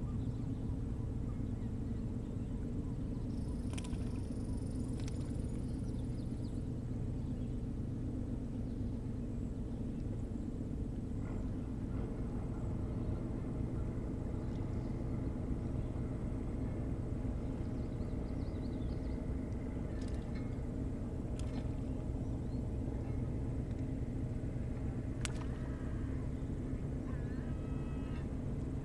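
A steady low motor drone with a constant hum running throughout. A few faint chirps are scattered over it, and a run of short bird calls comes near the end.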